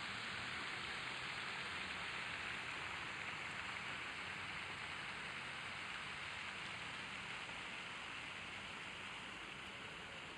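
Steady, even outdoor hiss with no distinct events, easing slightly near the end.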